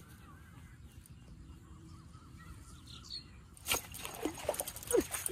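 Faint birdsong, then about three and a half seconds in a sudden sharp sound as the fishing rod is struck upward, followed by a hooked fish splashing and thrashing at the surface of the canal.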